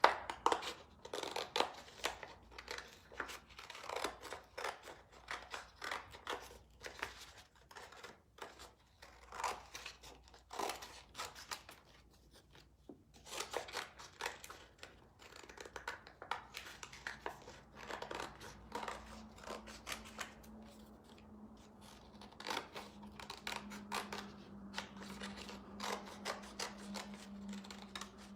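Scissors cutting through cardstock in many short, irregular snips, working around the intricate outline of a paper cut-out.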